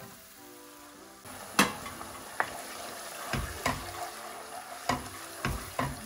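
Crushed canned tomatoes poured onto hot, sizzling meat and soffritto in a pot, the sizzle growing louder about a second in. A wooden spoon stirs them in, knocking against the pot about seven times.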